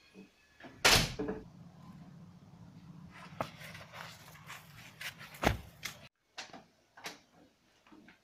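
A door shutting with a loud bang about a second in, followed by scattered knocks and thumps over a low steady hum, and a few more knocks near the end.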